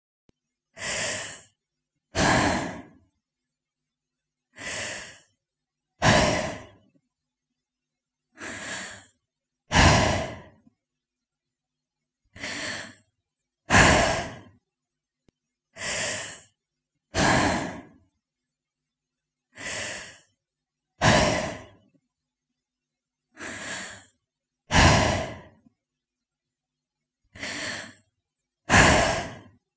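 A woman's breaths, recorded one by one as sound effects: about sixteen short breaths with dead silence between. They come in pairs every few seconds, a softer breath followed about a second later by a louder one.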